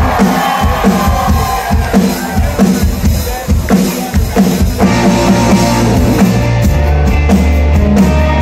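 A punk rock band playing live as a song begins: a drum kit beat with kick and snare, then bass and electric guitars joining about five seconds in.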